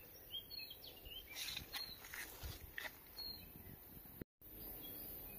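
Quiet woodland ambience: small birds chirping faintly, with a few soft rustles. The sound drops out completely for a moment about four seconds in.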